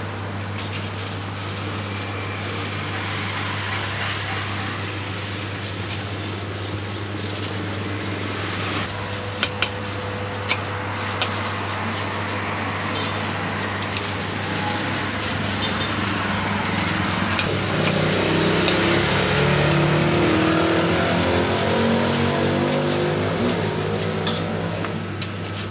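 Street traffic noise over a steady low hum; a vehicle engine swells and passes in the second half. A few sharp knife taps on a wooden cutting board come about ten seconds in.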